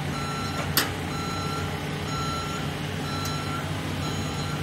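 Loadall telehandler's reversing alarm beeping about once a second over its running engine. A single sharp knock sounds about a second in.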